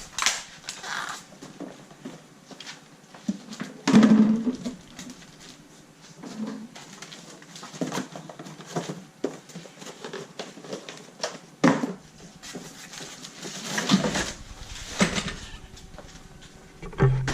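Unpacking a Ryobi electric pressure washer: cardboard and plastic packaging and parts being handled, with rustling and scattered knocks. The loudest knock comes about four seconds in.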